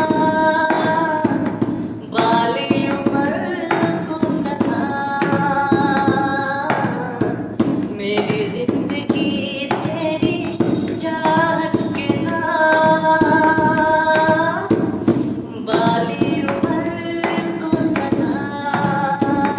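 Music: a Hindi song sung in long held notes, about two seconds each, over percussion strokes.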